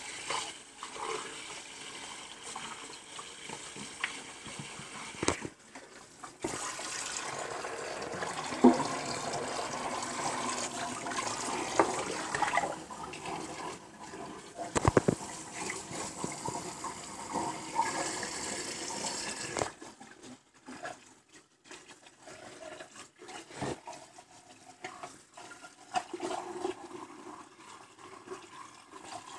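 Tap water running into a sink and splashing over a raw turkey as it is rinsed and cleaned out by hand, with scattered wet clicks and slaps. About twenty seconds in the splashing drops away suddenly, leaving quieter trickling.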